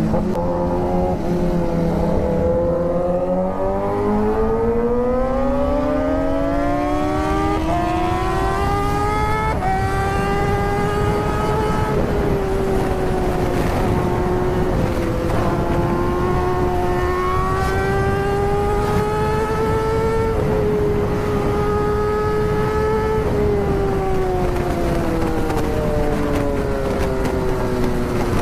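Inline-four sport-motorcycle engine under way, heard from the rider's seat: it eases off at first, then climbs in pitch with small steps at the upshifts, holds a fairly steady cruise with small rises and falls, and eases off again near the end. A steady rush of wind noise runs beneath it.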